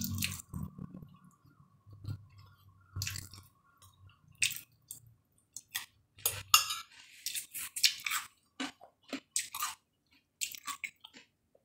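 A person chewing a toasted egg-and-cheese sandwich close to the microphone, in short irregular bursts of mouth noise.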